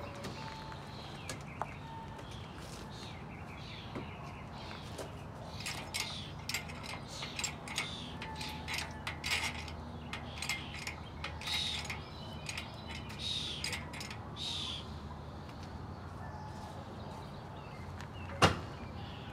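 Scattered light metallic clicks and clinks from a shop-crane chain and a hanging engine as it is eased toward a car's engine bay. They come thickest through the middle stretch, with a few bird chirps among them, and a single sharp knock sounds near the end.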